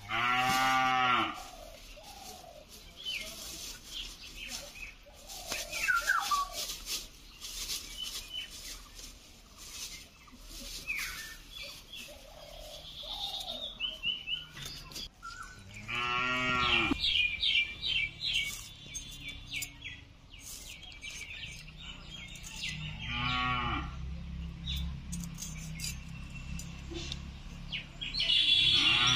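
A cow mooing four times, each call about a second long, with thin bird chirps and scattered sharp clicks and knocks between the calls.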